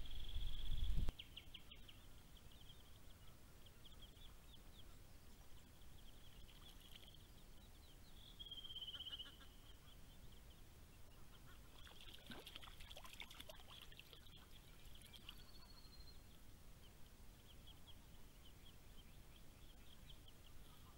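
Australian wood duck ducklings peeping: a faint run of high, rapid cheeps, with a few louder calls about eight seconds in and a busier cluster around twelve to fourteen seconds. A low rumble fills the first second and cuts off suddenly.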